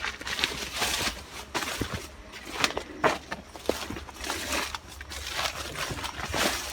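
Irregular crackling and rustling of leaves and twigs, short clicks scattered unevenly through the whole stretch.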